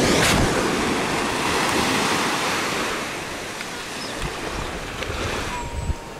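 Sea surf washing at the shore, a steady rushing that eases off about halfway through, with wind on the microphone. A short knock near the end.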